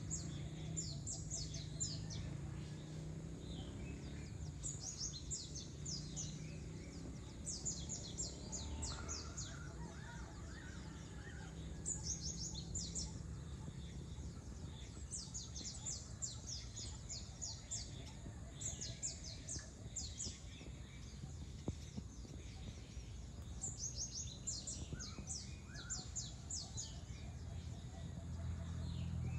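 Birds chirping in repeated runs of quick, high, falling notes every few seconds, over a steady low background hum.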